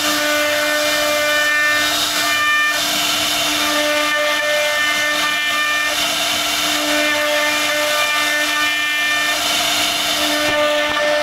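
CNC router spindle running with its bit carving into a wooden panel: a steady whine with higher tones that come and go as the cut changes, over a constant hiss of cutting.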